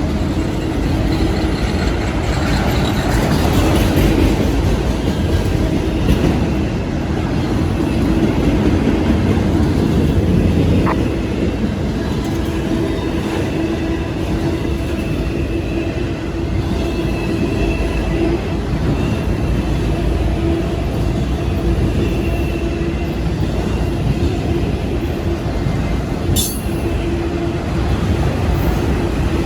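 Freight train of empty auto rack cars rolling past on the rails: a steady rumble and clatter of wheels with a steady ringing tone running through it, and a brief sharp squeak near the end.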